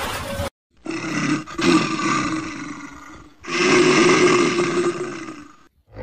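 A large animal roaring twice, each roar starting loud and trailing off over about two seconds. A brief rushing noise cuts off about half a second in.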